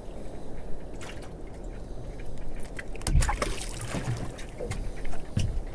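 Sea water lapping and trickling against the hull of a small drifting boat, with scattered small clicks. About three seconds in comes a short, louder splash as a ballan wrasse is dropped back into the sea over the side.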